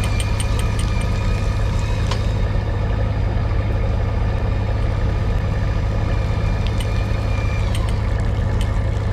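Fishing boat's engine running steadily, a constant low drone, with scattered faint high-pitched ticks.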